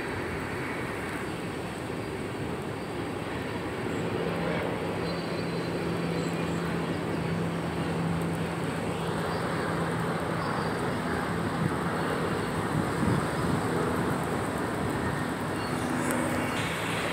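Freight train cars, tank cars and boxcars, rolling past on the track: a steady rumble of wheels on rail that grows a little louder about four seconds in, with a low steady tone through the middle.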